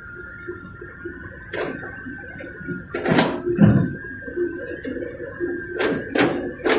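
Excavator at work: a steady whine over a low pulsing hum, broken by about five sharp knocks, the loudest pair about halfway through.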